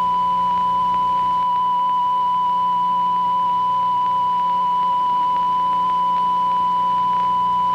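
Television colour-bars test tone: one steady, unwavering high beep that starts abruptly and holds at a constant level, over a faint low hum. It is the signal that the station has gone off the air.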